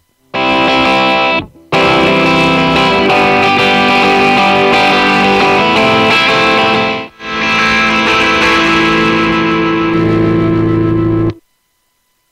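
Electric guitar chords played back through the Deluxe amp model of Steinberg's VST Amp Rack amp simulator. The guitar cuts out briefly near the start and again a little past halfway, then stops about a second before the end.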